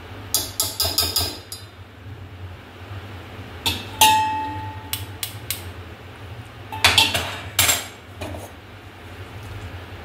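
Small steel tea strainer tapped and knocked against the rim of a steel saucepan, giving bunches of quick metal clinks, one of which rings out briefly about four seconds in.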